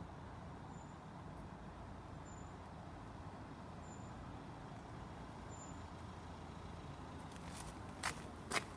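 Steady rumble of road traffic, with two sharp clicks near the end.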